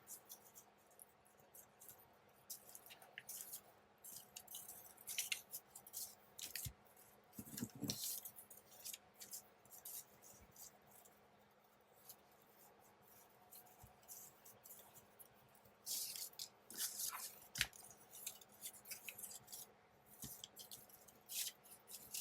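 Paper scraps rustling and sliding as they are handled and laid out by hand, in scattered short rustles with a denser spell about sixteen seconds in, and a soft knock on the table about eight seconds in.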